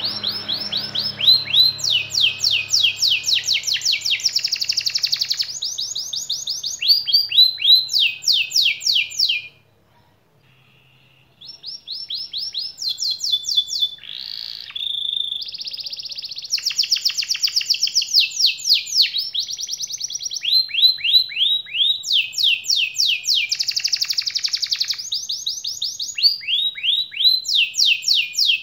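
Domestic canary singing a long rolling song: fast runs of the same short note repeated many times a second, each note falling in pitch, the runs changing pitch and speed one after another. The song breaks off for about two seconds near the middle, then starts again.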